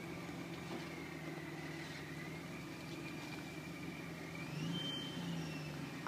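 Supercharged Jeep Wrangler Unlimited engine running at low revs as it crawls over rock ledges, with a steady high supercharger whine above the engine note. The revs and the whine rise together briefly about four and a half seconds in.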